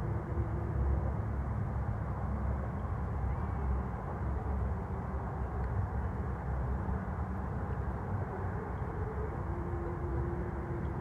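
Steady low rumble of a slow line of parade cars heard from across the water, with faint held tones near the start and again near the end.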